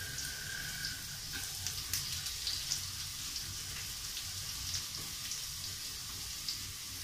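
Okra (ladies' finger) frying in hot oil in a small pan, a steady sizzle with scattered crackles and pops.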